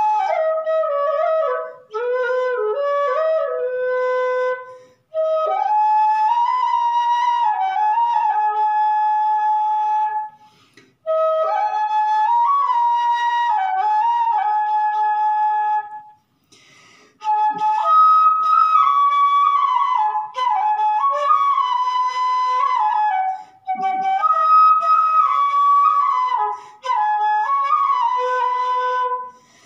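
Bamboo transverse flute (bansuri) playing a slow solo melody, clear single notes with bends and ornaments between them, in phrases broken by short pauses for breath.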